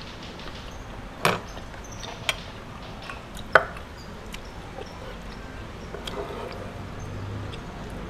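Eating and handling sounds over quiet room tone: chewing, with a few sharp clicks and taps as a metal spoon and bamboo satay skewers are handled on a wooden board. The three louder clicks come about one, two and three and a half seconds in, and the last is the loudest.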